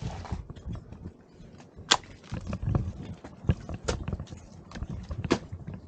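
Footsteps on snow and ice: irregular sharp clicks and crunches, the loudest three about two, four and five seconds in, over a steady low rumble of wind or handling on the microphone.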